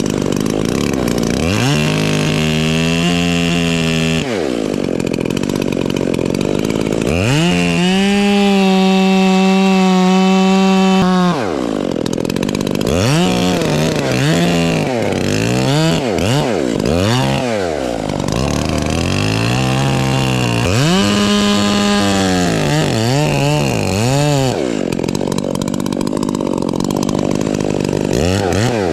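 Chainsaw cutting into the trunk at the base of a dead, rotten fir tree. The engine revs up and drops back again and again, holding at high speed for a few seconds about a third of the way in and revving more briefly and quickly after that.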